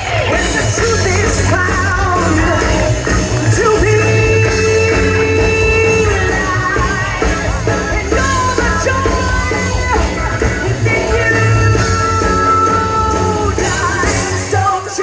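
Live rock band with a singer, drums and guitar, playing loudly. Several long notes are held, one around four seconds in and another near the end.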